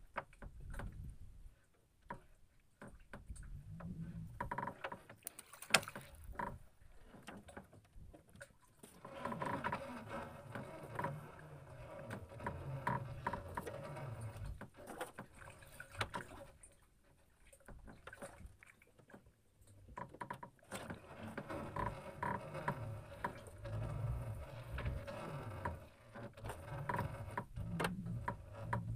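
Fishing longline being hauled in by hand over the side of a small wooden boat: the line dragging over the gunwale and water slapping the hull, with intermittent knocks on the wood and one sharp knock about six seconds in.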